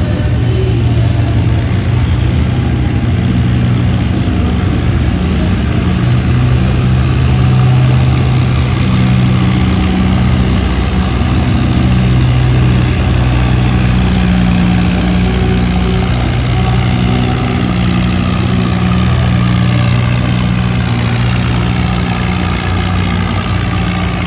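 Antique tractor engine running hard under full load while pulling a weight-transfer sled, heavy enough to lift the tractor's front wheels. It is a loud, steady engine note whose pitch creeps up near the end.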